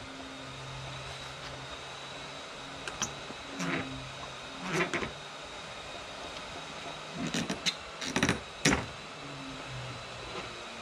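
A few sharp clicks and knocks as the suction-cup clamps of a Rubi Slim Cutter rail are locked onto a large porcelain tile and tools are handled on its surface, over a low hum that comes and goes.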